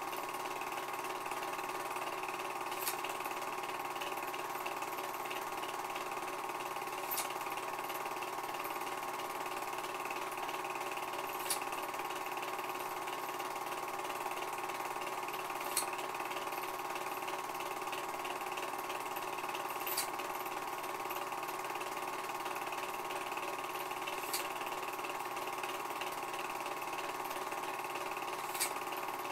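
Film projector running steadily while the silent home movie plays, a constant whirring hum with a faint click about every four seconds.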